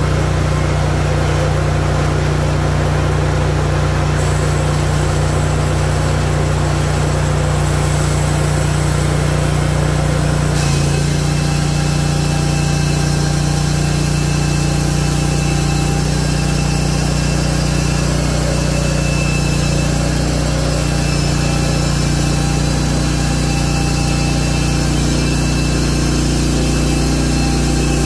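Hudson Oscar 336 portable bandsaw mill running steadily, its engine driving the band blade through a cherry log as the saw head is pushed along the track. About ten seconds in the sound brightens with an added high hiss and whine.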